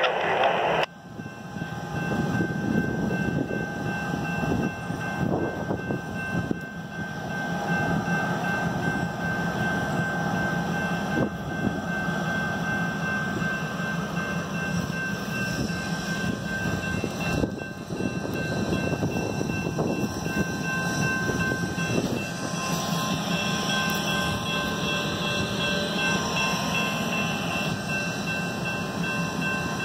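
Three diesel-electric locomotives moving slowly as a light-engine move, with a steady low engine rumble and faint constant whining tones above it. A brief louder noise cuts off about a second in.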